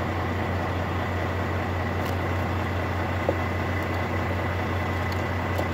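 Steady low drone of a Volvo VNL truck's diesel engine idling, heard inside the cab, with a faint click or two.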